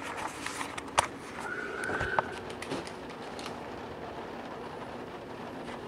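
Handling noise as a camera is moved and set in place: a few sharp clicks and knocks, the loudest about a second in, and a brief squeak just before two seconds, over a steady low hum.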